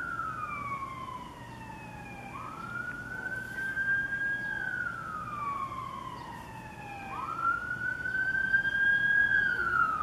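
Ambulance siren wailing in slow cycles: a quick rise to a held high note, then a long falling glide, about twice over. It grows louder toward the end.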